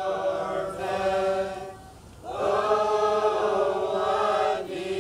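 A group of young Mennonite men singing together a cappella, holding long notes, with a short break for breath about two seconds in.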